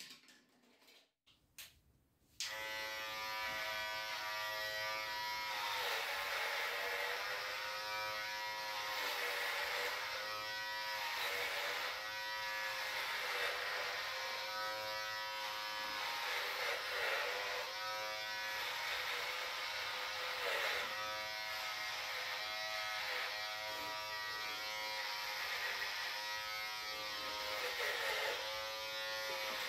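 Electric beard trimmer switched on about two seconds in, after a few faint clicks, then buzzing steadily. Its pitch dips briefly every couple of seconds as it is pushed through the long, thick beard hair.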